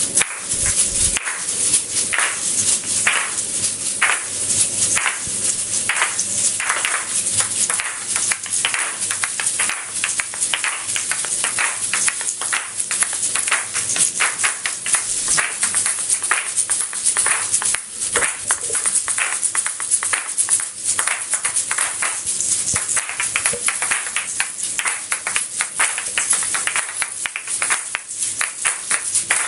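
Asalato (kashaka), pairs of seed-filled gourd shakers joined by a cord, played together by a group: a dense, rhythmic rattle of seeds with sharp clacks as the shells strike each other.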